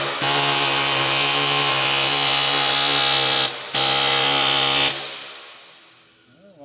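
Electric angle grinder running at full speed on metal, a steady whine over a harsh hiss. It cuts out for a moment, starts again, then is released and dies away gradually.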